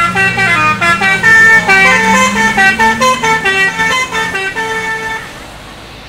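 A bus's telolet basuri musical horn playing a quick run of melody notes. It stops about five seconds in.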